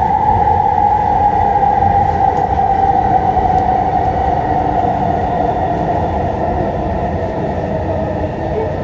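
SkyTrain Mark II car running on its elevated guideway, heard from inside: a steady wheel rumble under the whine of its linear induction motor, which slowly falls in pitch as the train slows.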